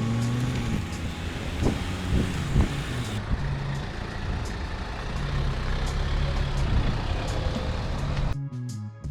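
A 4x4 driving, with steady road and engine noise and a few knocks about two seconds in. The noise cuts off near the end and music begins.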